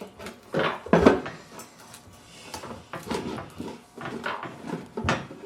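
Hard plastic parts of an animatronic figure being handled and fitted together: irregular knocks and clatters, the loudest about a second in.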